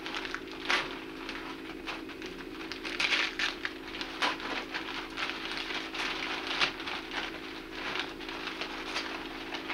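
Tissue paper and gift wrap rustling and crinkling as presents are unwrapped: a dense, irregular run of small crackles.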